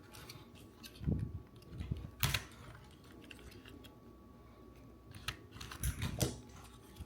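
Scattered light clicks and knocks of hands and a tool working the plastic trim clips of a car's steering wheel, a few sharper snaps among quieter handling noises.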